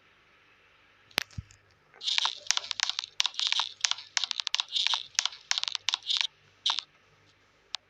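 Rapid, irregular clicks and crackles for about four seconds, with a single sharp click before them and two after, over a faint steady low hum.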